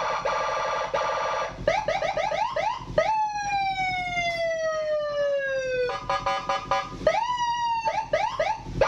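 Custom Senken five-tone motorcycle patrol siren being tested, stepping through its tones. It starts with a fast buzzing warble, then quick repeated yelping sweeps, then one long tone gliding slowly down for about three seconds. After another burst of the buzzing warble comes a rising wail and quick sweeps again.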